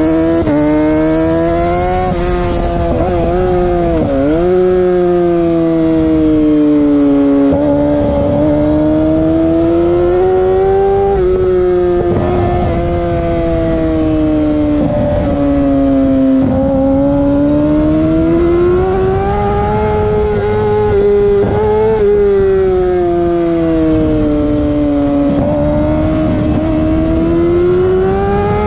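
Vehicle engine held at high revs with the throttle worked up and down, its pitch rising and falling slowly every few seconds, with a sharp brief drop and recovery about four seconds in.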